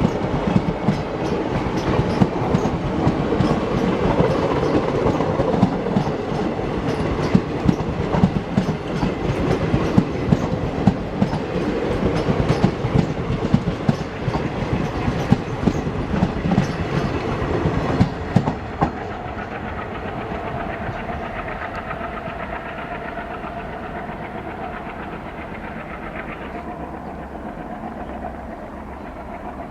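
Train running past at speed, its wheels clattering over rail joints, then after about 18 seconds the clatter stops and a smoother rumble slowly fades.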